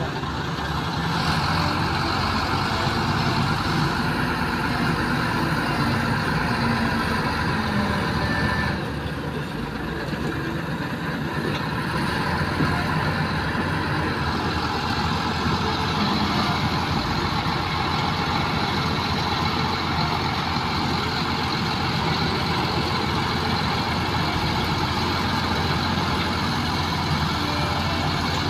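Diesel engines of a Cat crawler excavator and a crawler bulldozer running steadily while they work the mud, with a brief dip in level about nine seconds in.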